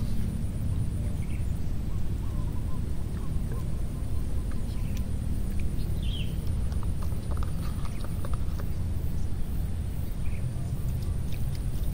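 Outdoor waterside ambience: a steady low rumble with a few faint, scattered bird chirps and some small clicks.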